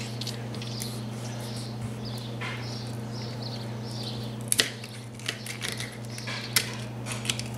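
Kitchen knife cutting through an eel's neck and backbone on a stone countertop: scattered soft crunches and clicks, a few sharper ones from about four and a half seconds on, over a steady low hum.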